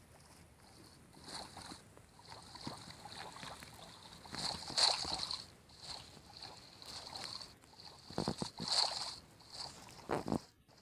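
Water splashing and sloshing in irregular bursts, the loudest about halfway through and again near the end.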